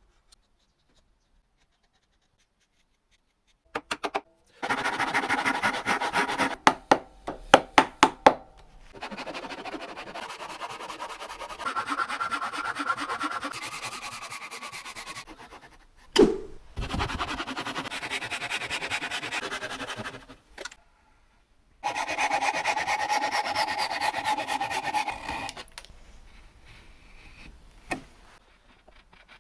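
Hand saw cutting wood in several bouts of quick, even strokes, with short pauses between them and a single sharp knock about midway. The first few seconds are near silent.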